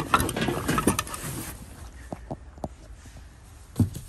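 Items being handled and rummaged out of a box: about a second and a half of rustling and clatter, then a few light clicks and a single knock near the end.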